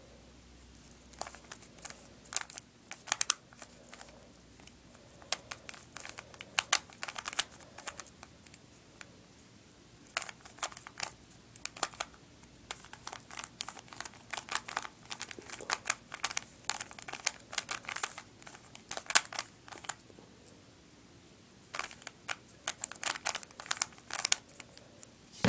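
Plastic 3x3 puzzle cube being turned by hand while its first layer is solved: runs of quick clacking layer turns with short pauses in between.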